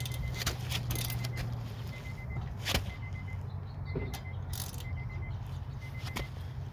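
Scattered clicks and knocks of a small ratchet and socket working on a stuck wheel bolt, over a steady low hum.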